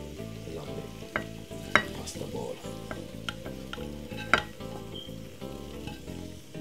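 Wooden spoon scraping and pushing penne out of a hot frying pan onto a plate, with the pan still sizzling. There are three sharp knocks of the spoon against the pan, the loudest about two seconds in and again near four seconds.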